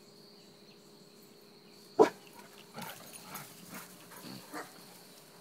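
A dog barks once, sharply, about two seconds in, followed by several fainter short sounds from the dogs. A steady high insect trill, typical of crickets, runs underneath.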